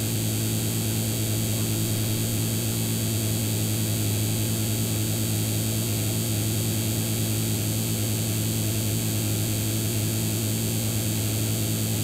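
PC speakers putting out a steady electrical hum, a strong low tone with a hiss layered over it, that starts abruptly and then holds unchanged. It is the computer's own internal electrical noise leaking into the audio output while the computer is under load and nothing is playing.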